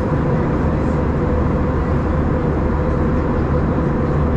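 Steady jet engine and airflow noise inside the cabin of an Airbus A321 airliner, with a steady hum running under the noise.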